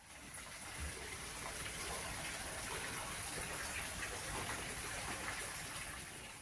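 Steady rush of running water, fading in at the start and easing off near the end.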